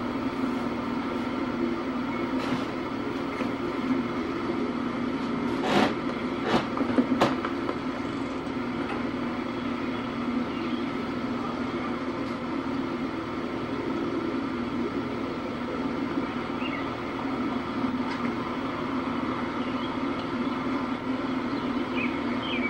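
A steady mechanical drone with several steady tones in it, and a few sharp knocks about six to seven seconds in.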